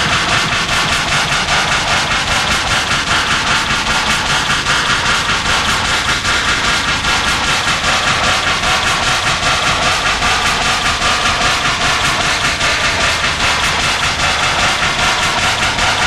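Harsh noise music: a loud, unbroken wall of distorted electronic noise, chopped by a fast, even stutter.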